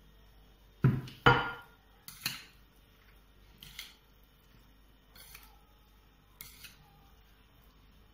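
Dishware knocking on a tabletop: a sharp pair of clacks about a second in, a saucer being set down, then a few lighter knocks and taps of the bowl and chopping board spaced a second or more apart.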